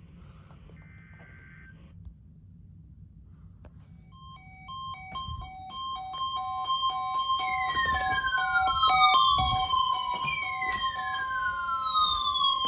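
A second-long burst of Emergency Alert System header data tones about a second in. Then, from about four seconds on, an emergency vehicle siren grows louder, first switching between two tones, then sweeping down in pitch again and again, over a low rumble.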